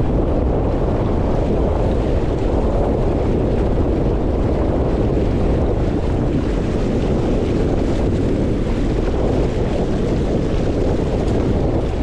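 Strong wind buffeting the microphone over water rushing along the hull of a Catalina Capri 22 sailboat heeled and moving fast under sail. A steady noise with no breaks.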